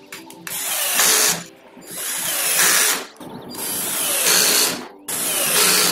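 Cordless drill driving screws into wood, running in four bursts of about a second each.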